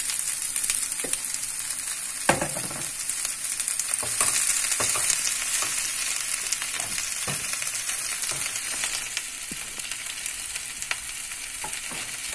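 Chopped fresh spinach frying in hot oil in a pan with onion and garlic: a steady sizzle, with scattered knocks of a wooden spoon stirring against the pan, the sharpest about two seconds in.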